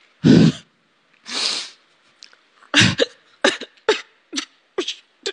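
A man crying. A sharp breathy sob comes at the start and a longer breathy exhale about a second later, then from about three seconds in a quick run of short, choked sobs.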